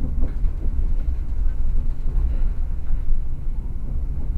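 Passenger train running, heard from inside the carriage: a steady low rumble.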